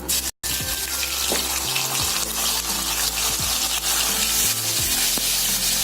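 Ginger-garlic paste sizzling as it fries in hot oil in a pan. The sizzle starts after a brief break about a third of a second in and then holds steady.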